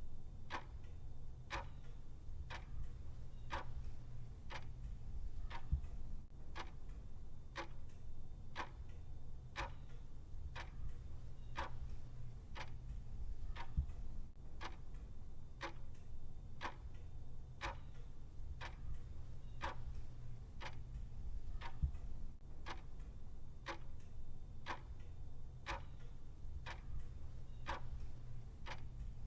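Clock ticking steadily in an even rhythm, about three ticks every two seconds, over a faint low hum.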